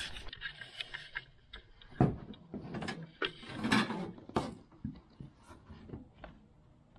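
Hands handling a washer hose and its threaded metal fittings: scattered clicks, knocks and rattles, with one sharper knock about two seconds in.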